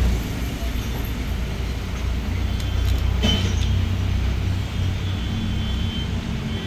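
Motorcycle engine running, a low steady rumble that swells a little about two seconds in and settles again.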